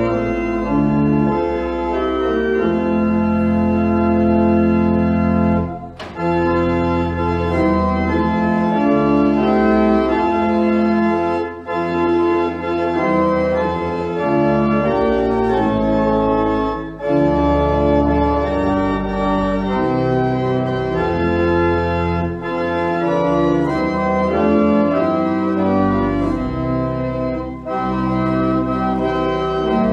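Church organ playing a hymn-like piece in held chords, phrase by phrase, with a brief break roughly every five to six seconds.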